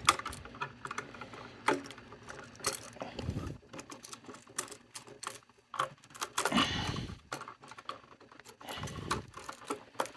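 Irregular small metallic clicks, scrapes and rustles of solid copper wires being worked free of an outlet's loosened terminal screws, where the wire loops are twisted around the screws.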